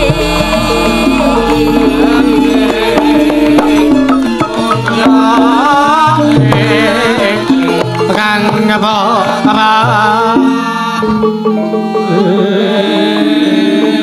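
Javanese gamelan playing with kendang drumming, and a voice singing a wavering melody in the middle. The low drum strokes drop out about eleven seconds in, leaving the held instrument tones.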